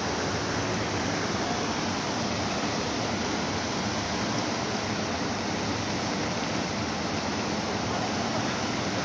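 Fast, muddy floodwater rushing in a steady, continuous churn of turbulent water.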